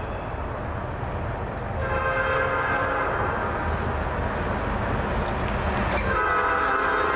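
Diesel locomotive air horn sounding from an approaching Norfolk Southern train: a chord of several steady tones held for about a second and a half starting about two seconds in, then a second blast starting about six seconds in, over a low rumble.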